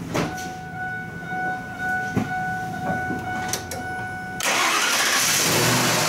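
A Ford F-150 is started with the key. A steady high tone sounds while the key is on, with a few light clicks. About four and a half seconds in, the starter cranks the engine through the newly replaced starter solenoid and the engine starts and runs.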